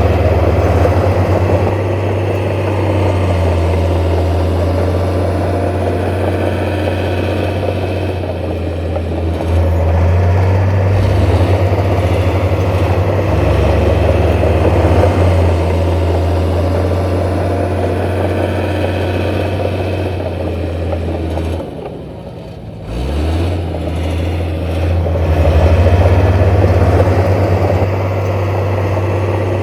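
Heavy earthmoving machine's diesel engine running steadily. Near the end the engine note drops away for about a second, then rises back up.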